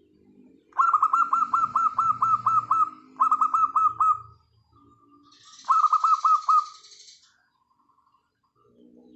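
Wild zebra doves cooing softly and repeatedly. Three loud runs of quick, repeated bird notes, about four or five a second, cut across the cooing from about a second in.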